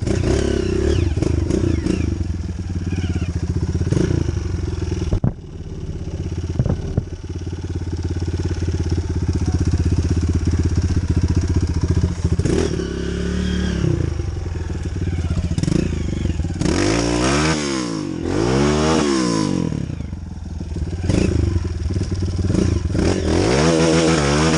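Off-road trail motorcycle engines running, revving up and down repeatedly in the second half.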